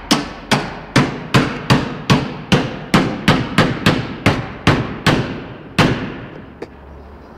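Hand hammer striking a rally car's metal door frame, about two blows a second, each with a short metallic ring, as the bent frame is beaten back into shape. The blows stop about six seconds in.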